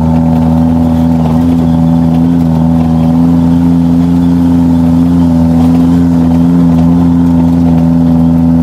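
Tour jeep's engine running steadily on the mountain road, a loud, constant low drone that holds its pitch.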